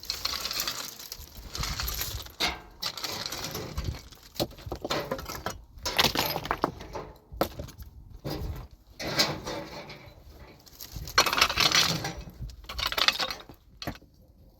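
Stones and gravel scraping and clattering as rocks are shifted by hand, in a run of irregular bursts that thin out near the end.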